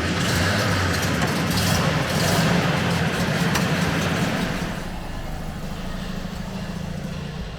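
Air-cooled flat-four engine of a 1967 Volkswagen Microbus running, louder for the first four to five seconds, then settling to a lower, steady note.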